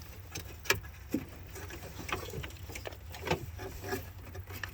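Light clicks and rattles of hands working parts and wiring loose inside a truck door panel, with a sharper click about a second in.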